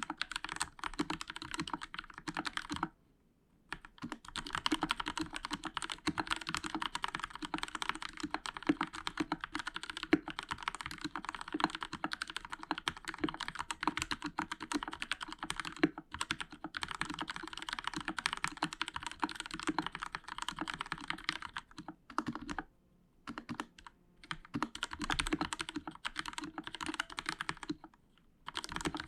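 Fast continuous typing on a Royal Kludge RK61 60% mechanical keyboard with linear Outemu Red switches, foam under the PCB and lubed stabilizers, keys clacking in quick runs broken by brief pauses, the longest about three seconds in.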